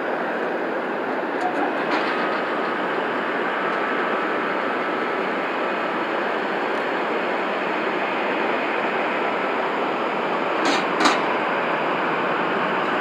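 Steady jet noise from a Boeing 747-436's four Rolls-Royce RB211-524G turbofans running at take-off power. Two sharp clicks about eleven seconds in.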